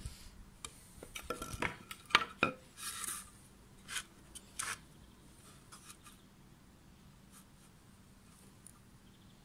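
Wooden pallet boards being handled and set down on a tabletop: a quick run of wooden clacks and knocks in the first couple of seconds, a short scrape, and two more knocks, then only faint scratches of a ballpoint pen marking the wood.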